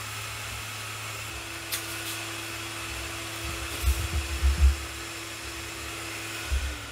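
Small CPAP blower running in its sand-filled enclosure, giving a steady airy whoosh with a faint steady hum. A couple of light clicks and a few low thumps come around the middle. Near the end its tone steps down as it is turned down toward 20% speed.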